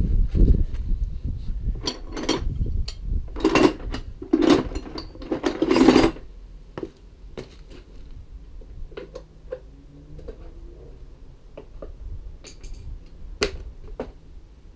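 Metal clanks and knocks of a wheel brace working on a van's wheel nuts to crack them loose. They are loudest and thickest over the first six seconds, with a low rumble under them, then thin out to lighter scattered clicks.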